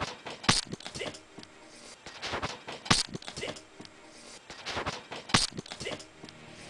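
Handling noise from a reptile enclosure being opened: sharp knocks and clacks of its door and frame, the three loudest about half a second in, near three seconds and just past five seconds, with smaller clicks and scrapes between.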